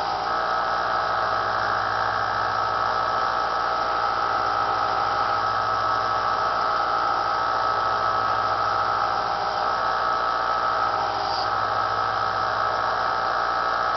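Small bench belt sander running steadily while a stainless steel table knife is sharpened on it, a continuous motor whir with a steady tone.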